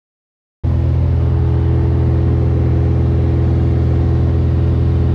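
Mooney M20F's four-cylinder Lycoming IO-360 engine and propeller droning steadily in cruise flight, heard from inside the cabin. It cuts in suddenly about half a second in and holds an even pitch.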